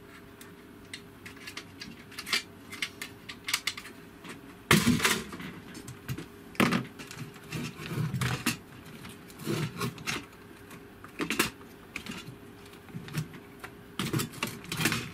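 Irregular clicks, knocks and rattles of the Daewoo SDA1247's plastic housing and heater assembly being handled and pulled apart by hand. The loudest knocks come about five and seven seconds in.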